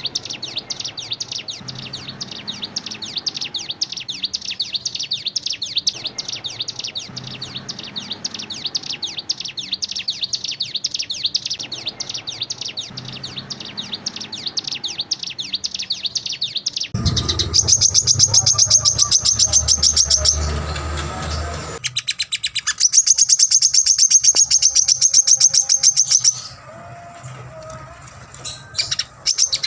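Compilation of songbirds singing, several birds' songs edited together. A fast, steady run of high chirps lasts about seventeen seconds, then it switches abruptly to a louder high trill over a low rumble, a second trill, and softer calls near the end.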